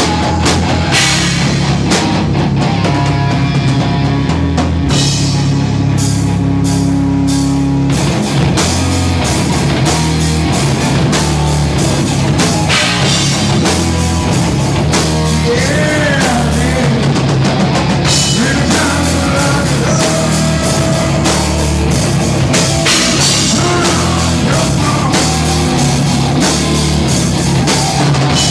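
Live rock band playing loud heavy rock, with electric guitar and drum kit.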